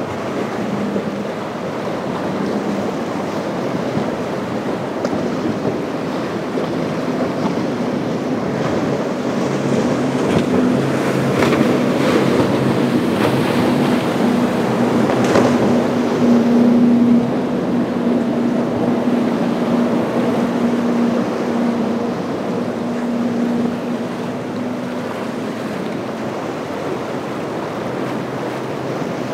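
Triple 300 hp Mercury outboards on a Boston Whaler 350 Realm running hard through rough water: a steady engine drone that builds to its loudest a little past the middle and then fades as the boat passes. It sits over a constant wash of breaking waves, spray, and wind on the microphone.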